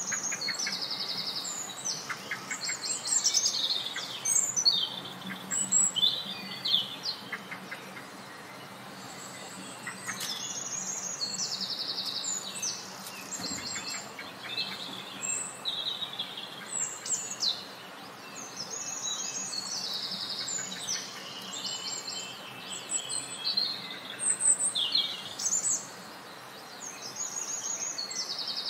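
Songbirds singing and calling: many overlapping high-pitched chirps, whistles and fast trills, coming in busy clusters with short lulls.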